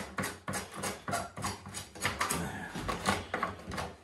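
Hand screwdriver driving the screws that fix plastic adjustable legs to a kitchen base unit: a run of short sharp mechanical clicks, about three a second, like a ratchet.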